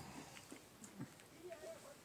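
Near silence: room tone with a few faint clicks and a brief, faint murmur of a voice in the second half.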